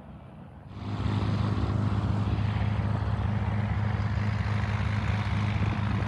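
Steady, loud drone of a propeller plane's piston engine, with a low hum under a broad wash of noise. It starts suddenly about a second in.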